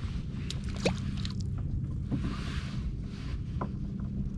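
Small boat's engine running steadily at a low idle, with a few light knocks and a brief rush of hiss about halfway through.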